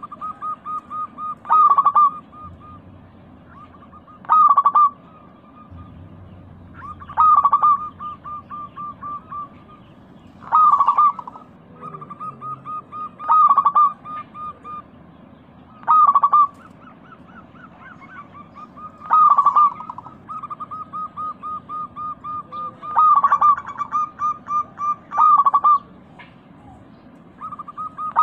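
Zebra doves (perkutut) cooing. A loud call phrase comes every few seconds, and each one trails into a run of quick, softer, evenly spaced coos.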